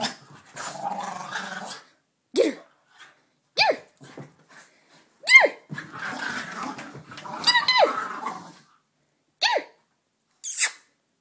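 Two dogs play-fighting: rough growling broken by about six short, sharp barks that drop in pitch.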